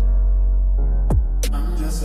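Instrumental gap in a dancehall song: a deep, steady bass and held chords, with three or so kick drums that drop in pitch, while the treble is filtered out for most of the stretch.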